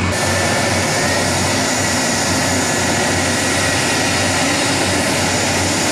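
F-4 Phantom II jet taxiing close by, its J79 turbojet engines running steadily at low power: a loud, even rush of jet noise with a thin high whine running through it.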